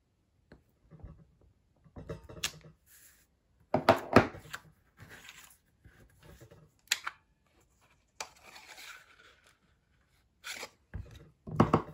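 Hands handling card stock and craft tools on a tabletop: a string of separate knocks and clacks from a clear acrylic stamp block and a plastic paper punch being set down and picked up, with card rustling and sliding between them. The loudest clacks come about four seconds in.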